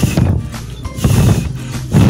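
A person blowing puffs of breath onto a sow-thistle seed head, the breath buffeting the microphone in gusts near the start, about a second in and again at the end, over background guitar music.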